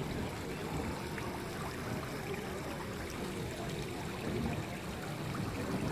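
Steady water noise of river water lapping against a stone quay, with faint small splashes where a dense shoal of mullets churns the surface.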